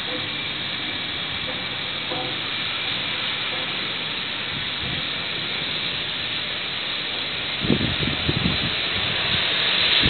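Steady rushing hiss of wind and ship noise on a freighter's open deck. About eight seconds in, gusts begin to buffet the microphone.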